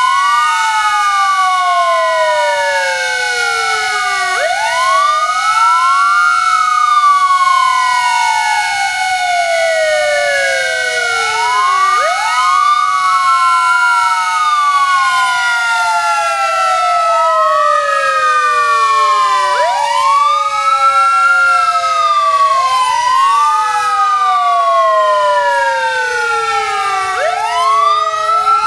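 Several fire brigade sirens wailing together: overlapping tones that slowly fall and then sweep quickly back up, repeating every few seconds over steady held tones. They are sounded as the W Hour tribute to the Warsaw Uprising.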